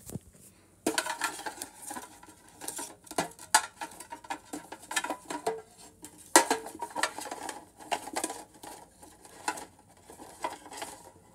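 Pokémon trading cards being handled and sorted: irregular clicks, taps and rustles as cards are shuffled and set against each other, starting about a second in.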